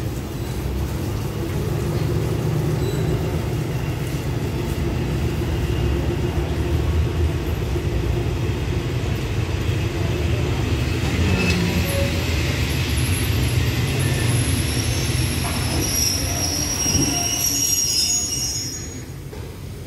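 Passenger carriages of a train rolling slowly through a station with a steady low rumble. About halfway through, a high wheel-and-brake squeal sets in, then cuts off near the end as the train comes to a stop.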